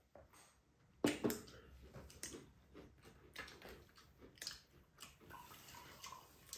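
A mug knocks down onto the table about a second in, followed by small clicks and eating noises, and near the end a dark drink is poured from a bottle into a ceramic mug.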